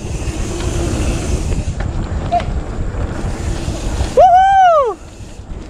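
Wind buffeting an action camera's microphone over the rumble of a mountain bike rolling along a dirt trail. About four seconds in, a short, loud vocal whoop rises and then falls in pitch.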